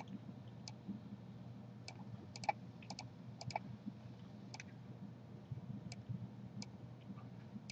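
Computer mouse clicking, a dozen or so scattered clicks, some in quick pairs, over a faint steady hum.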